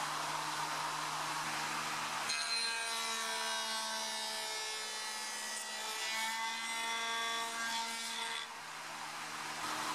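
Spindle moulder running, then from about two seconds in its spinning cutter cuts a profile along a wooden strip, a whining cut with a pitch that wavers slightly. Near the end the cut finishes and the machine runs on.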